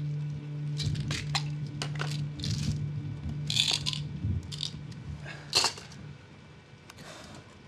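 A young man crying quietly, with irregular gasping breaths and sniffs, the sharpest about three and a half and five and a half seconds in, over a low steady hum that fades out about six seconds in.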